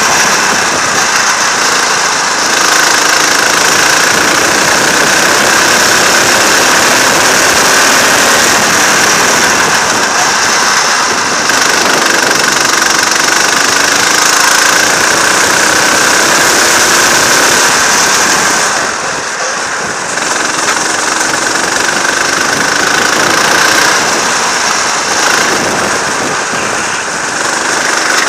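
Go-kart engine running hard on a lap, heard from the driver's seat, its pitch rising and falling with the throttle; it eases off briefly about two-thirds of the way through, then picks up again.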